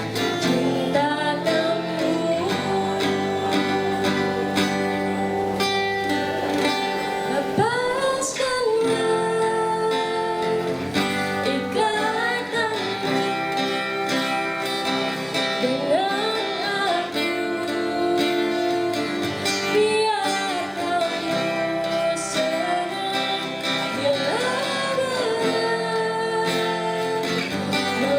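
Music: a song with plucked guitar and a lead melody that slides up and down in pitch every few seconds.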